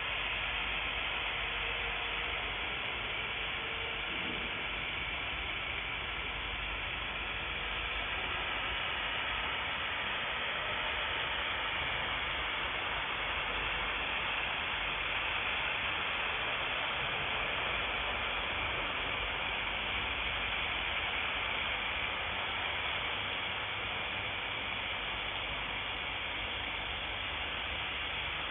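A 1000 W fiber laser welding machine running: a steady, even hiss that does not change throughout.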